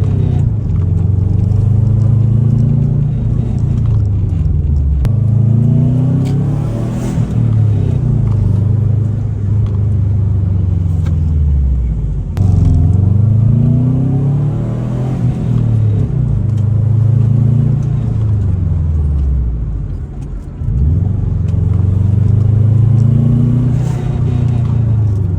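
2003 Subaru WRX's turbocharged flat-four engine pulling through the gears while driving. Its pitch climbs, then drops again at each shift, several times over.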